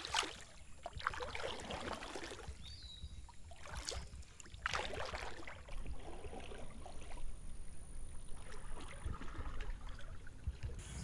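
A canoe paddle dipping and pulling through calm water, a few separate swishing, splashing strokes.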